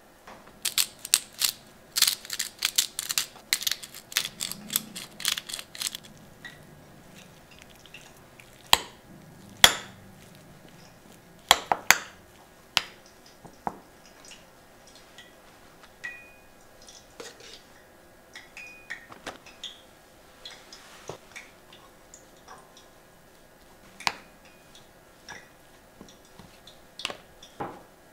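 Metal spoon clinking and scraping against a glass bowl while mashing cooked potatoes: a quick run of clinks in the first few seconds, then scattered single clinks.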